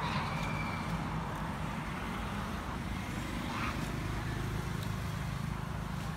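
Steady low outdoor rumble with a hiss over it, the kind a motor vehicle running nearby makes. A faint short high sound comes about a second in, and another after about three and a half seconds.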